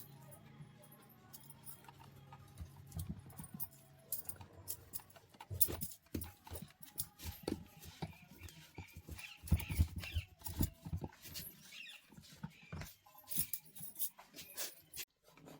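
Irregular clicks and knocks of a table fan's parts being handled and taken apart, growing busier after about five seconds, with a low steady hum in the first few seconds.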